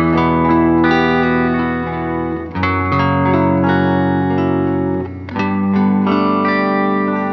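Background music: sustained guitar chords with effects, the chord changing about every two and a half seconds.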